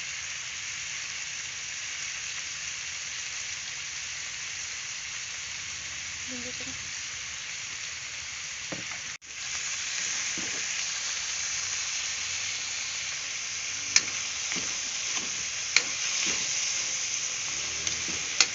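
Chicken and green beans frying in a pan, a steady sizzle, while a spatula stirs them. There is a brief break about nine seconds in, and sharp clicks of the utensil against the pan come three times near the end.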